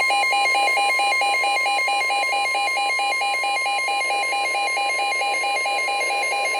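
NOAA Weather Radio warning alarm: a steady tone of about 1 kHz, the 1050 Hz warning alert tone, with a second radio's electronic alarm beeping rapidly over it, about five beeps a second. It heralds a special marine warning.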